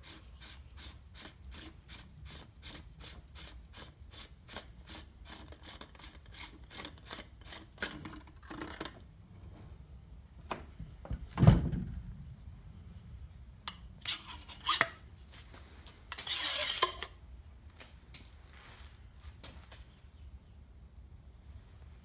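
Metal grease barrel of a DEWALT 20 V cordless grease gun being twisted off its threads, a run of fine scraping clicks about four a second. About eleven seconds in comes one heavy knock, then a few sharp clicks and a brief scraping rush of metal on metal.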